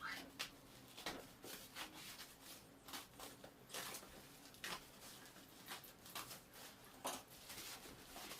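Parcel packaging being opened by hand: irregular bursts of rustling, crinkling and scraping, a dozen or so short sounds with brief pauses between.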